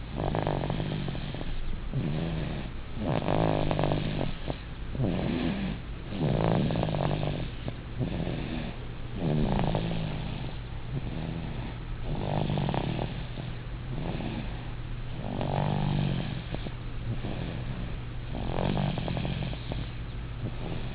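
An eight-month-old baby snoring in its sleep: a short buzzing snore with each breath, about every three seconds, seven times over.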